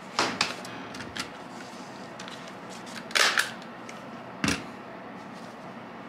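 Sheets of paper being handled, with several sharp rustles and flaps, and a single knock about four and a half seconds in; a steady low hum underneath.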